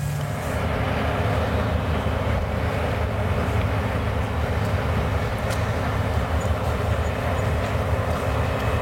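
Steady, unbroken rumble of a running vehicle, with a low hum under a noisy hiss.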